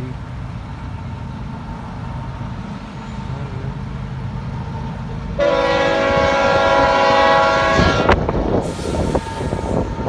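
A diesel locomotive air horn, on Union Pacific GE GEVO UP 8069, blows one long chord blast of nearly three seconds starting about five seconds in. Low rumble comes before and after it.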